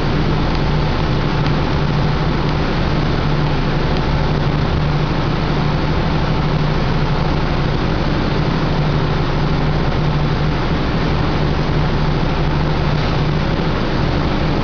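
Homemade CNC milling machine running with a steady, even hum that holds constant throughout.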